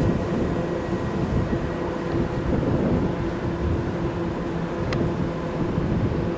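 Wind rumbling on the microphone over a steady mechanical hum, with a faint click about five seconds in.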